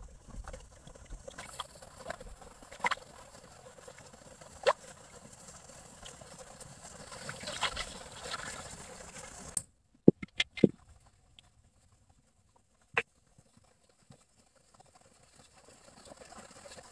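Hands swishing and rubbing in a metal wok of water, washing tomatoes, with a few light clicks against the pan. About ten seconds in the sound changes abruptly to a few sharp knocks with near silence between them, and a soft trickle begins near the end as oil is poured into the wok.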